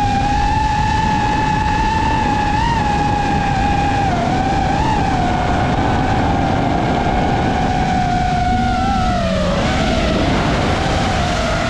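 FPV quadcopter's motors and propellers whining at a high, fairly steady pitch with small wobbles as the throttle shifts. The whine drops sharply about nine and a half seconds in as the throttle is pulled back, then climbs again. A heavy rushing noise runs underneath.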